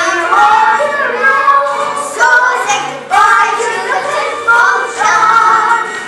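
Children singing a musical-theatre number with musical accompaniment, in short sung phrases.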